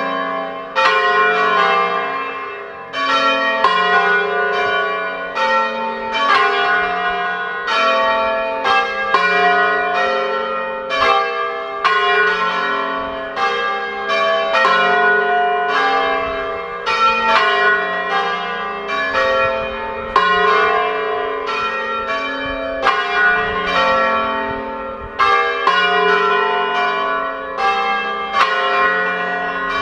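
A four-bell church ring in F, all four bells ringing together in a plenum, or solemn full peal. The strikes overlap irregularly and build a continuous clangour of ringing bronze tones.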